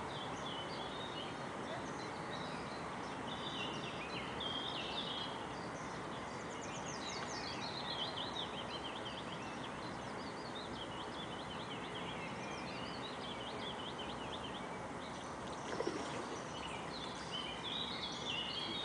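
Songbirds singing in repeated chirps and trills, with a falling trill about six seconds in, over a steady hiss of outdoor background noise.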